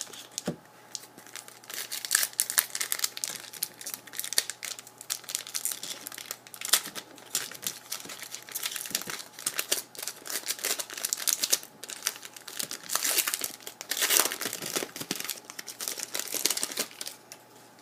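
Foil wrapper of a hockey card pack crinkling and tearing as it is opened, with cards being handled: a dense, irregular run of crackles that stops just before the end.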